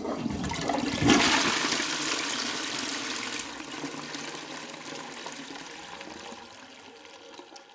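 A rush of water that starts suddenly, surges louder about a second in, then slowly dies away.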